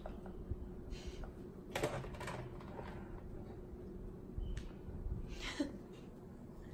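A few light knocks and scrapes from a clear plastic dog bowl as a Labrador lifts it in its mouth and gets it stuck over its head.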